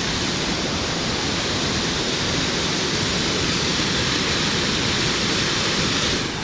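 Waterfall: a steady, loud rush of falling water, dropping slightly in level just before the end.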